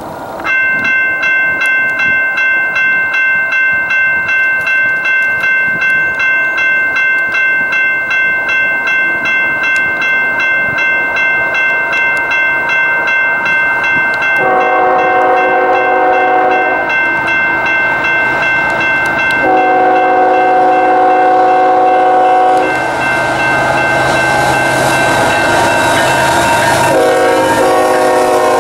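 Railroad grade-crossing warning bell ringing steadily, while an approaching Union Pacific freight's diesel locomotive horn sounds long blasts about halfway through, again a few seconds later, and once more near the end. In the last third, the rumble of the lead locomotives rolling past the crossing builds under the bell and horn.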